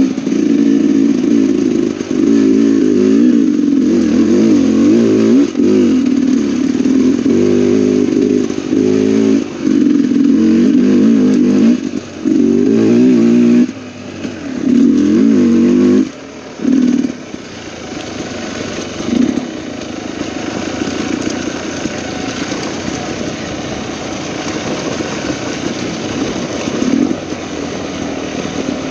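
Dirt bike engine on the trail, revving up and backing off in repeated bursts as the throttle is opened and closed. About sixteen seconds in it drops to a lower, quieter, steadier running, with a few short blips of throttle after that.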